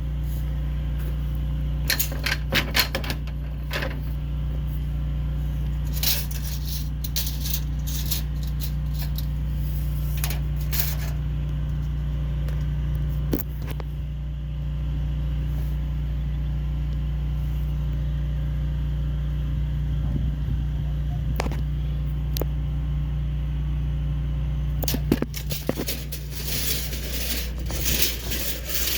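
Light metallic clinking and scraping in scattered bits, turning to a denser rattle near the end, over a steady low hum.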